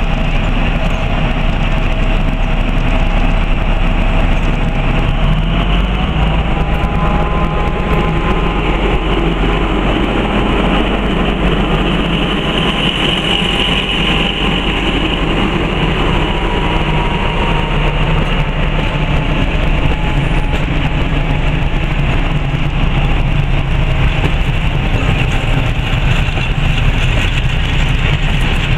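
Diesel-hauled passenger train passing at close range: a red diesel locomotive, then a rake of passenger coaches running by on the rails. A steady loud rumble, with a faint whining tone that rises about six seconds in.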